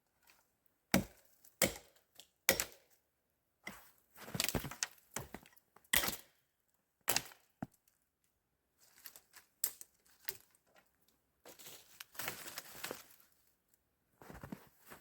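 Wood being worked by hand: sharp cracks and knocks of branches snapping or being struck, at irregular intervals, with two longer stretches of splintering crackle.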